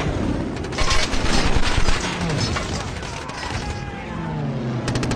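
Movie air-raid sound effects: rapid machine-gun fire, a dense burst about a second in and another starting near the end, with gliding engine-like tones and men's shouts in between.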